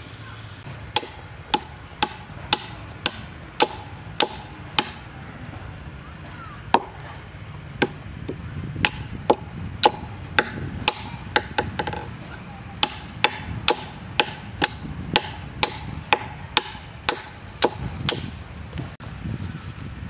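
Small hatchet chopping into a coconut palm trunk to cut footholds, about two sharp blows a second with a short pause partway through.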